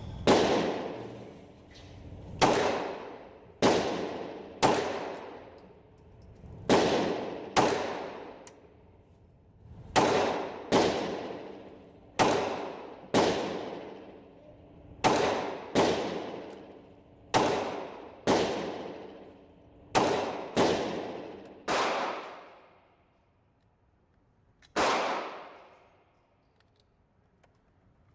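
Glock 17 9mm pistol fired at a slow, deliberate pace: about eighteen shots, often in pairs roughly a second apart with a second or two between pairs, each followed by a short decaying echo. A longer pause of about three seconds comes before the last shot.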